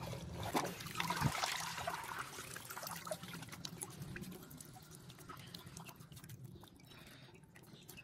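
Water splashing and trickling as a bunch of wet alfalfa is lifted out of a plastic tub of wash water, loudest in the first two seconds, then fading to scattered drips.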